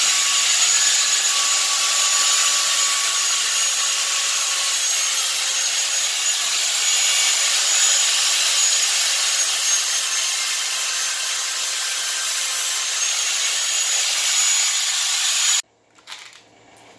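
Handheld angle grinder with a cut-off disc running steadily as it cuts through threaded rod, then stopping abruptly near the end.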